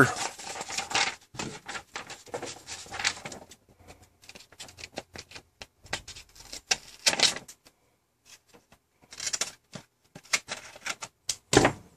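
Scissors snipping through a sheet of paper, with paper rustling as it is handled. The snips and rustles come irregularly in short, crisp bursts, with a brief pause about eight seconds in.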